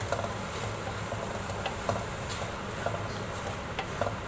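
Light, irregular clicks and scrapes of a spoon stirring thick carrot halwa in a kadhai, over a steady low hum.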